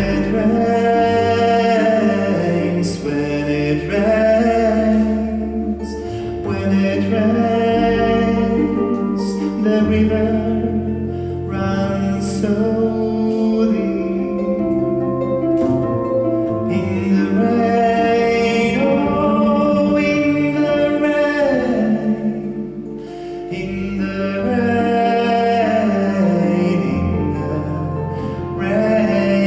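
Live music: a male voice singing a slow song, accompanied by plucked harp and double bass holding long low notes.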